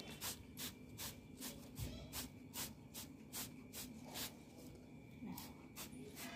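Trigger spray bottle misting water onto plant leaves in quick short spritzes, about two or three a second, with a brief pause a little before the end.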